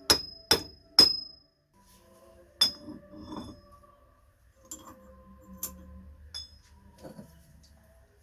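A hammer strikes a steel pipe used as a drift to drive a new centre bearing onto a tailshaft. Three quick ringing metallic blows come about half a second apart, another about two and a half seconds in, then a few lighter knocks.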